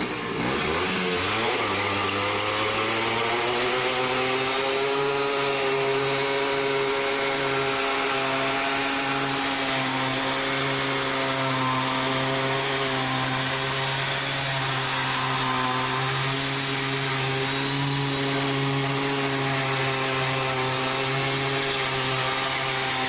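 Simson Star moped's 50 cc two-stroke single-cylinder engine revving up over the first few seconds, then held at steady high revs for a tyre-smoking burnout, with a hissing noise over the engine note.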